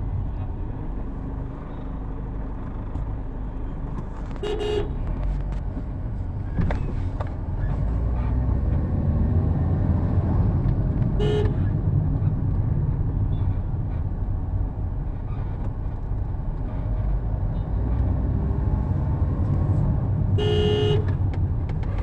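Road traffic with a steady low rumble, and a vehicle horn tooting three times: once about four and a half seconds in, a brief toot around eleven seconds, and a longer, louder blast near the end.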